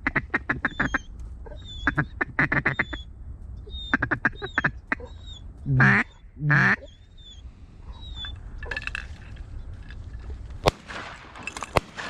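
Duck quacking in quick runs of short quacks that come in bursts every couple of seconds, with thin high whistled notes between them. Two louder, longer calls come about halfway through, and a single sharp click comes near the end.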